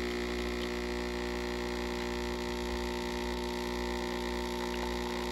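Coffee machine humming steadily as it dispenses coffee into a mug of ice, cutting off abruptly at the end.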